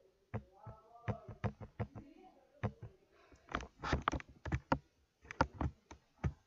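Irregular clicking and tapping of a computer keyboard and mouse, about two dozen sharp clicks in quick groups with a short pause near the end.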